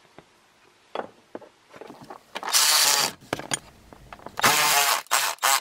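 Milwaukee cordless electric ratchet running in short bursts as it drives in a hip striker latch bolt. There is a single click about a second in, then two main runs about two and a half and four and a half seconds in, with a few brief blips just after.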